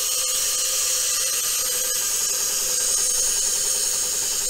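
Air Lift airbags on a Ford F-250's rear suspension venting air: a steady hiss with a high whine as the truck slowly squats back down.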